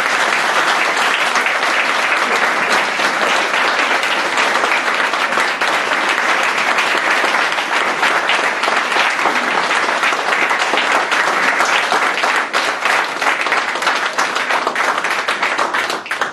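Audience applauding, a sustained burst of many hands clapping that cuts off suddenly at the end.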